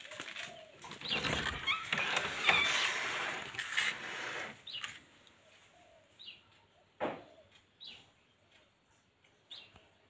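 Rustling handling noise for about the first four seconds. Then quieter, with small birds chirping, faint dove-like cooing and a single sharp click about seven seconds in.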